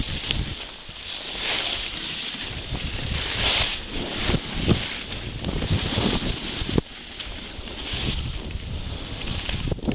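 Wind buffeting the microphone over the hiss of edges scraping through snow during a downhill run. The hiss swells and fades every second or two, with each turn.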